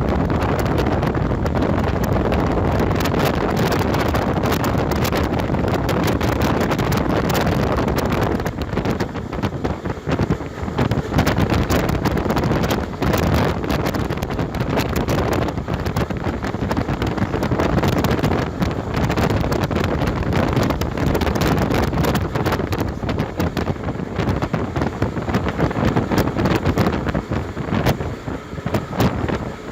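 A diesel train running at speed, with heavy wind buffeting the microphone over the rumble and rattle of the moving train.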